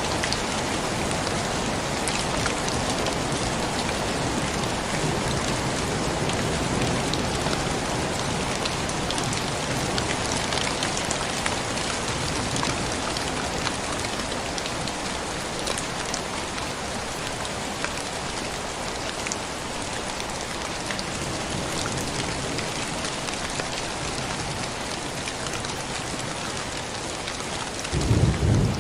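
Steady heavy rain falling on a surface, with scattered individual drops ticking. Just before the end a short, low rumble of thunder, the loudest moment.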